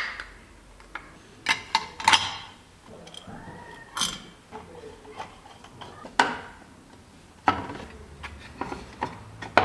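Irregular clicks and knocks of small metal parts and tools being handled on a workbench, a dozen or so sharp taps at uneven intervals.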